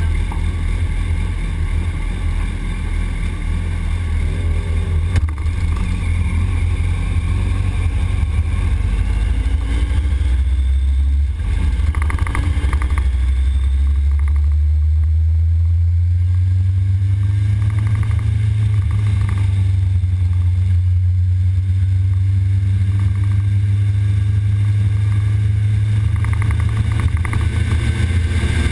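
Sport motorcycle's engine pulling away from a standstill and revving up through the gears, rising in pitch several times with a short dip at a gear change about eleven seconds in. The sound from the poorly mounted onboard camera is muffled, dominated by a heavy low rumble.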